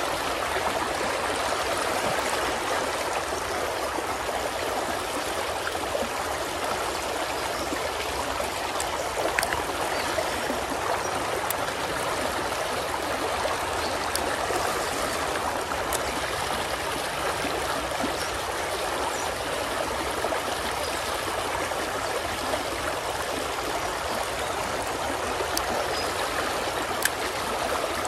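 Shallow creek water running over stones in a riffle: a steady, unbroken rushing babble.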